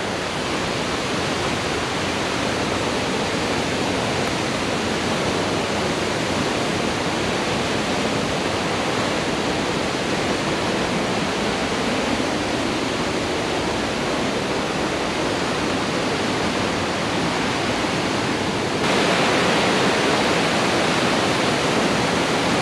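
Steady rushing of a stream's running water, an even hiss with no pauses, which steps up louder and brighter about 19 s in.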